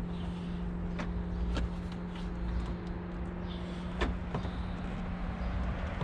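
A handful of sharp clicks and knocks from hands working on the car's plastic front bumper and its clips, the strongest about four seconds in, over a steady low hum.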